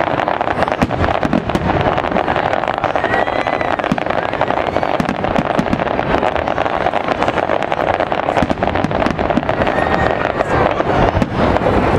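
Fireworks display: a dense, continuous barrage of bangs and crackling from aerial shells and low crackling effects, over a steady background din.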